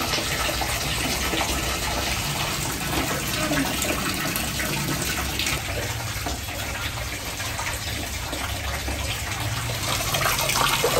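Water running steadily from a wall tap into a plastic basin.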